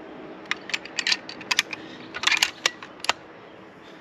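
Remington 700 bolt-action rifle being loaded: a string of sharp metallic clicks and ticks as a cartridge goes in and the bolt is worked.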